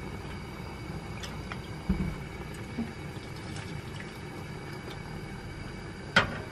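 Steady hiss of a pot of water heating on a gas burner, with small liquid sounds as a steel ladle stirs vinegar and salt into it. There is a dull knock about two seconds in and a sharp clink of the ladle against the pot near the end.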